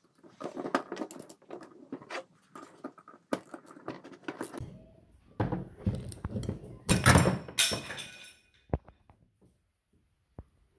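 Irregular metallic clinks, knocks and clatter of hand tools and small metal parts (bolts, washers, sprocket) being handled while a scooter's freewheel assembly is tightened and put back together. The busiest, loudest clatter comes about seven seconds in, and a few sharp ticks follow near the end.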